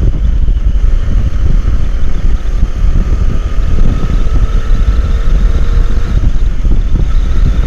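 Loud wind buffeting on a small external microphone during a ride at speed, a constant low rumble with engine and road noise beneath it.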